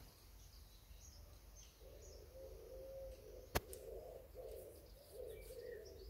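A pigeon cooing in repeated low phrases from about two seconds in, with faint high chirps of small birds before it. A single sharp click cuts in about halfway through.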